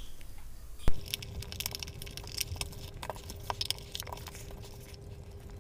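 Plastic analog multimeter case being handled on a tabletop: a sharp knock about a second in as it is turned over and set down, then scattered light clicks and taps as the back of the case is worked on, over a faint steady hum.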